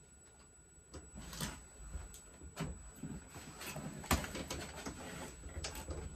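Irregular knocks, clicks and rustling of things being handled and moved about, with a sharper knock a little past the middle.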